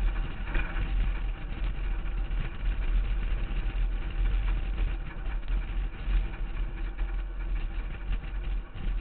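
Harvest truck driving along the road, heard from a camera mounted on the outside of its body. Wind buffets the microphone in a constant, uneven low rumble, mixed with engine and tyre noise.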